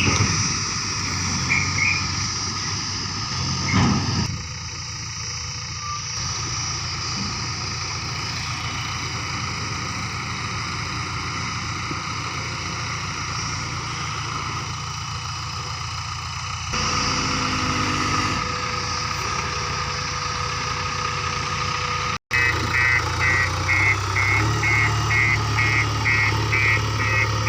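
Heavy diesel engine of the working backhoe loader and tipper truck running steadily. In the last few seconds a high electronic beep repeats about twice a second.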